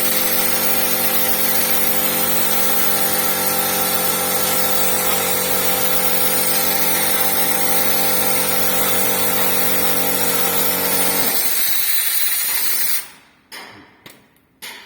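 A power tool running steadily with a constant pitch, then winding down and cutting off about 13 seconds in. A few light clicks or knocks follow.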